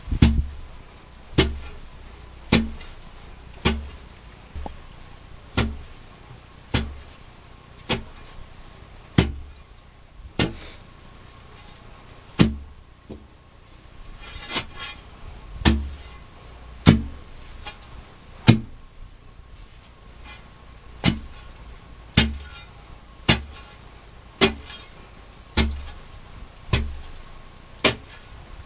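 Hand-digging at the bottom of a narrow mine shaft: a digging tool strikes the pit floor about once a second in a steady working rhythm, each blow a sharp knock with a dull low thud, with a short pause a little past halfway.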